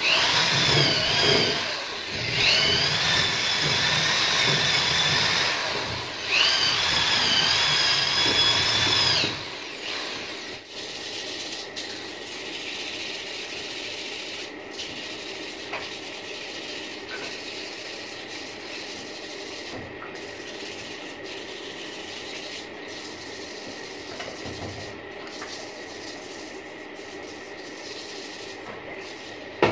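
Corded electric drill spinning a wire brush against the bore of an aluminium motorbike wheel hub: a loud, steady high whine in three runs with short breaks. The drill stops about nine seconds in, leaving a quieter steady background.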